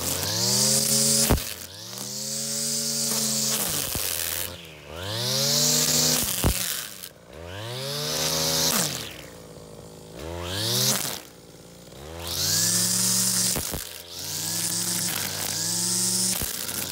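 Brushcutter engine revved up and down in repeated bursts of a couple of seconds each, dropping back toward idle in between, while the nylon line of the trimmer head cuts through grass with a hiss at full speed. A few sharp ticks are heard along the way.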